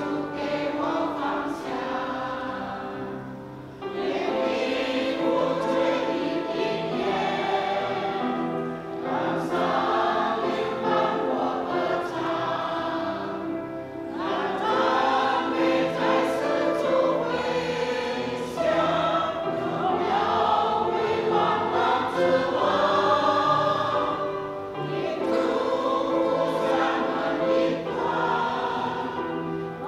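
Mixed-voice church choir singing a hymn of praise in parts, the phrases separated by short pauses.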